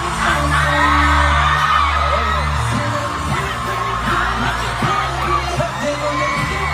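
Pop song playing, a sung melody over a heavy bass line that holds long low notes.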